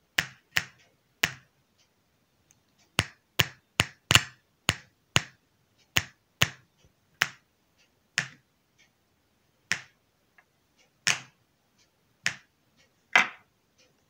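Loudspeaker popping as a coupling capacitor's lead is tapped repeatedly against the output terminal of a switch-mode power supply, each touch charging the capacitor through the speaker coil. About seventeen sharp, irregular pops, with no hum between them.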